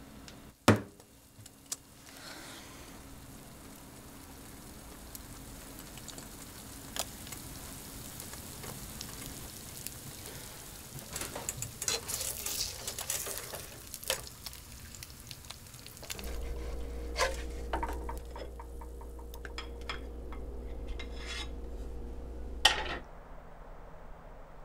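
An egg sizzling as it fries in a pan, with a plastic spatula scraping and knocking against the pan. Later a steady low hum with one faint held tone runs for several seconds and ends with a sharp knock.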